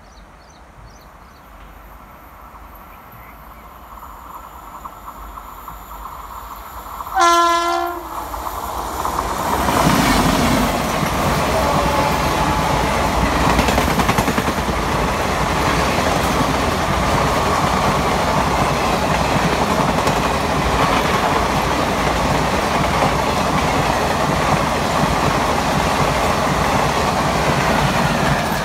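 Indian Railways express train behind a WAP-7 electric locomotive: a rising approach, one short horn blast about seven seconds in, then the loud, steady rush and rumble of the coaches' wheels on the rails as the train passes at speed.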